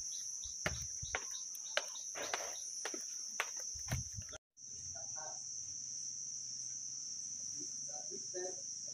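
Steady high-pitched chirring of insects, broken by a brief dropout about halfway through. Over it in the first half, regular footsteps on concrete steps, about two a second.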